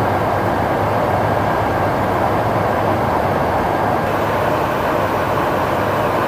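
Steady rush and drone of a tanker aircraft in flight heard inside its boom operator station, a constant noise of airflow and engines with a low hum beneath it. A faint steady whine sits above it and stops about four seconds in.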